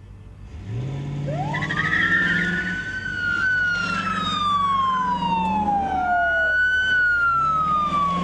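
Police car siren starting up about a second in and sounding a slow wail. Its pitch climbs quickly, slides slowly down, then climbs and falls again.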